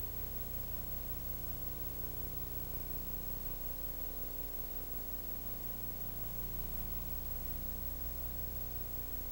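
Steady electrical hum under an even hiss: the background noise of a recording that has been copied over several generations of VHS tape. No clicks from the screwdriver work stand out.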